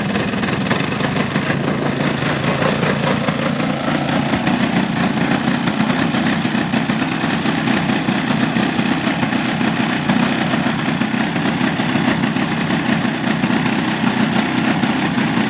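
Engine of a very large radio-controlled aerobatic airplane running steadily just after start-up.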